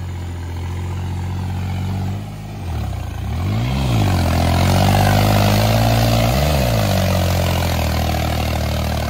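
Tractor diesel engine labouring under heavy load as the tractor drags through deep mud on its belly. Its pitch dips and recovers twice, about three and a half seconds in and again near six and a half seconds, with a rushing noise over it in the middle.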